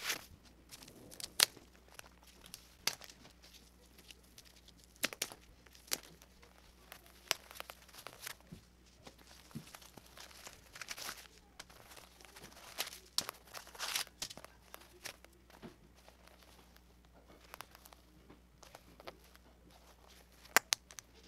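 Tissue paper crinkling and rustling in short bursts as the stuffing paper is pulled out of a leather handbag, with two sharp clicks near the end.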